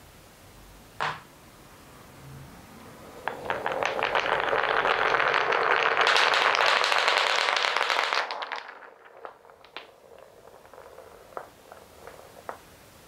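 A long train of balls rolling and clattering through the grooved channels of a wooden block marble run: a single wooden knock about a second in, then a dense rattle from about three seconds that lasts several seconds and thins out to scattered clicks as the last balls roll out and knock together.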